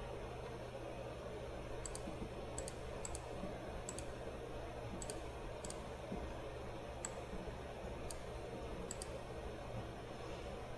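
Computer mouse clicking about a dozen times, singly and in quick pairs, as colours are picked. A steady low hum lies underneath.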